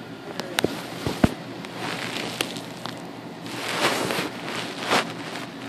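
A kitten suckling and kneading a comforter close to the microphone: crackling rustles of fabric and fur, with several sharp clicks in the first second and a longer rustle past the middle.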